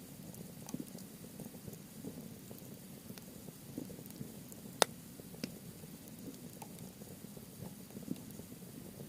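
Wood campfire of softwood and hardwood burning: a low flame rumble with scattered small crackles, and one sharp, loud pop about five seconds in.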